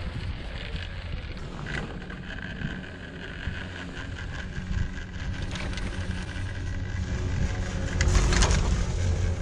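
Steady low rumble and wind noise while riding a moving chairlift, with a faint high whine through the middle. A louder rustling comes in near the end.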